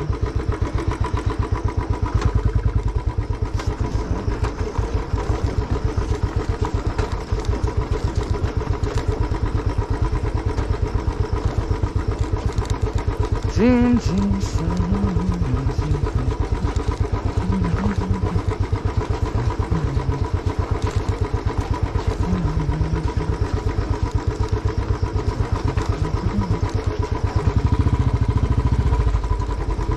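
Motorcycle engine running steadily while the bike is ridden.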